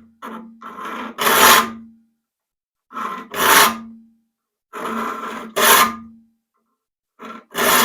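A file being pushed across the teeth of a rip hand saw to sharpen them, in about two rasping strokes per tooth. There are four pairs at roughly two-second intervals, each a short light stroke and then a longer, louder one. The steel saw plate rings briefly after the heavier strokes.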